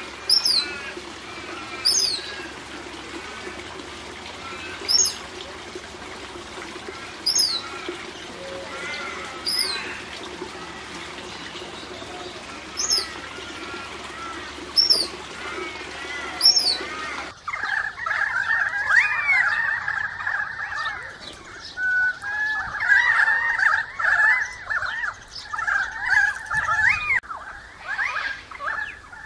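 For about 17 seconds, sharp, very high chirps fall quickly in pitch and come every two to three seconds over a steady low hum and hiss. Then the sound changes suddenly to a dense, busy chatter of galah calls.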